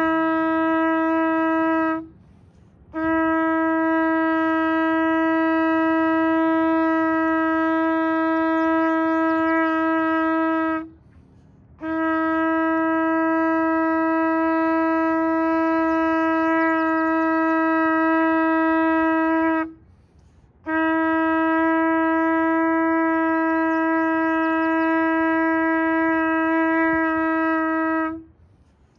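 Shofar sounded in long, steady blasts on one unchanging pitch, each about eight seconds long, with a second's break for breath between them. Four blasts in all, the first already under way and ending about two seconds in.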